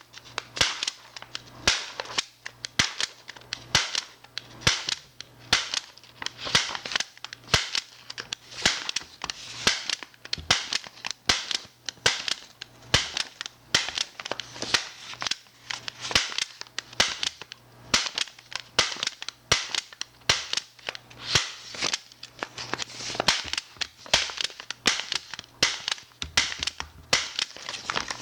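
MAX HD-50F half-strip stapler, held in the hand, stapling sheets of paper over and over: a fast run of sharp clacks, about two to three a second.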